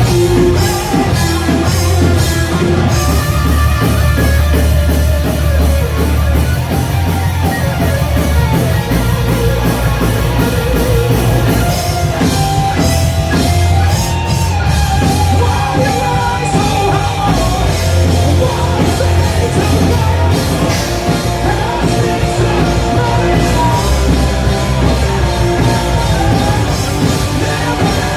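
A black metal band playing live and loud, with full-band distorted instruments and yelled vocals.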